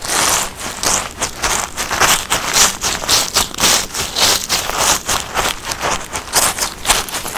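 Feet trampling on forest grass and moss: a dense run of quick rustling, crunching steps, several a second.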